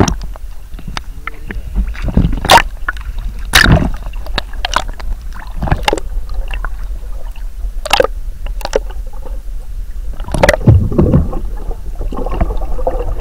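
Muffled underwater sloshing and gurgling, heard through a camera held below the lake surface. Irregular sharp knocks come through as the camera and its housing move in the water.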